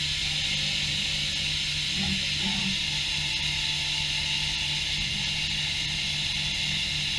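Steady machine hum with a constant hiss, running unchanged throughout.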